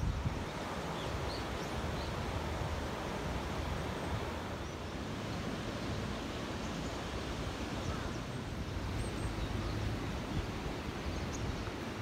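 Steady rushing of the Katsura River's water over its weir, mixed with wind, with no distinct events.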